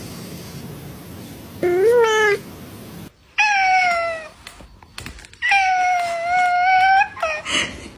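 Cats meowing. A short meow rises in pitch about two seconds in. A falling meow follows, then a longer drawn-out meow and two brief calls near the end.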